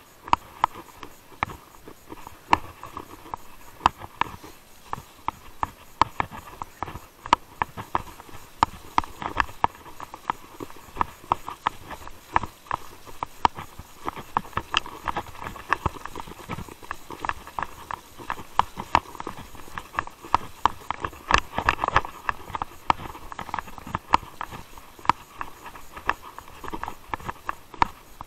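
Mountain bike riding over a rough dirt and mud forest track: a steady rolling rush from the tyres, broken by frequent irregular knocks and rattles as the bike hits bumps.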